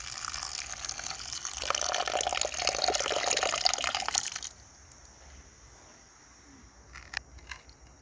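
Water poured in a thin stream into a clay pot of dry red lentils, splashing onto the grains. It grows louder and fuller as the water pools, then stops about four and a half seconds in.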